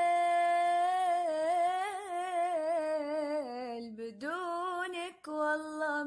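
A woman singing alone without words: a long held note, then wavering runs with heavy vibrato that slide down in pitch, and a few short notes near the end.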